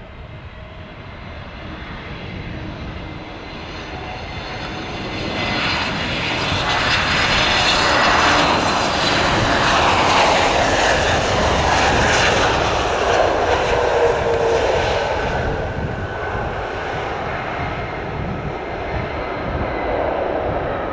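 Twin jet engines of an Aer Lingus narrow-body airliner on its landing run, the noise swelling to a loud peak about halfway through and then easing off.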